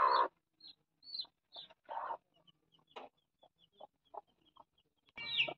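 A black hen clucking in short, low bursts about once a second while her chicks peep in quick, high chirps. Near the end comes a louder burst of clucking and peeping.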